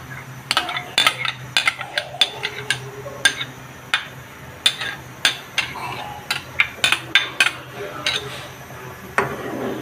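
Irregular sharp clinks and knocks, a couple a second, of kitchen utensils and a container against a pan as palm pulp is added to milk and rice, over a low steady hum.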